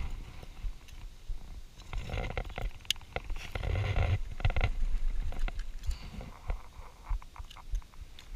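Close handling noise as a caught largemouth bass is dealt with: rubbing, rustling and a few knocks, with an arm brushing over the camera and microphone. It is loudest in the middle, with low rumbles there.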